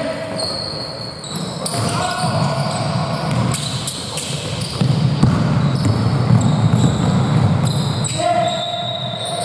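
Basketball game sounds in a gym hall: the ball bouncing on the court, sneakers squeaking in short high chirps, and players calling out, with the noise growing busier about halfway through.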